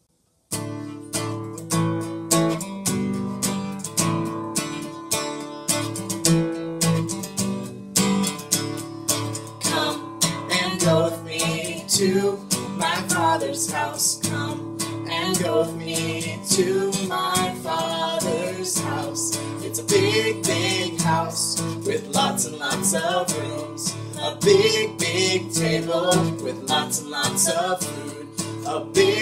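Background music led by a strummed acoustic guitar, starting about half a second in after a brief silence, with a melody line over it from about ten seconds in.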